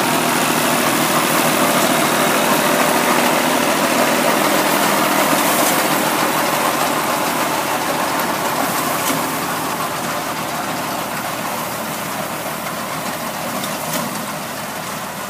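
Fiat 480 tractor's three-cylinder diesel engine running steadily as it works a tractor-mounted wheat reaper through standing wheat. The sound grows fainter through the second half as the tractor moves off.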